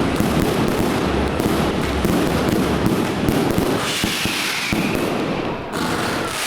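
Fireworks display: a dense, rapid crackle of pops and bangs from firework shots, easing off after about three and a half seconds into a hissing whistle around four seconds in.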